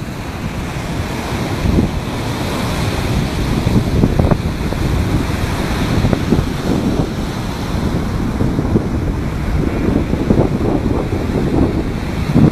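Rough surf breaking and washing up a sandy beach, with wind buffeting the microphone in uneven gusts.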